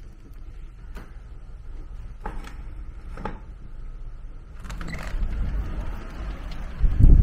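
Wind buffeting the microphone as a low rumble that grows after about five seconds, with a strong gust near the end. A few short clicks and knocks come before it.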